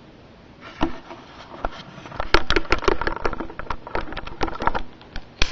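Handling noise: a quick, irregular run of sharp clicks and knocks from about a second in, busiest in the middle, with one louder click near the end.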